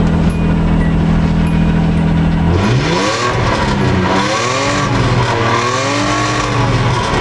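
1988 Nissan Hardbody pickup engine on its stock exhaust, idling steadily, then revved three times from about two and a half seconds in, each rev rising and falling in pitch.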